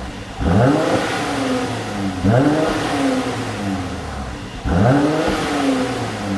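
Mercedes C43 AMG engine revved three times, each rev rising quickly and falling back slowly. Irregular popping from the exhaust as the revs drop off is the sign of a pop-and-crackle (overrun) tune.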